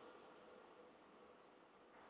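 Near silence: the last faint noise of a passing freight train dying away.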